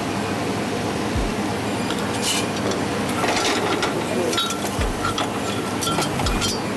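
Pepper shrimp being cooked in a metal pan: utensil clinks and knocks against the pan at irregular intervals over a steady hiss.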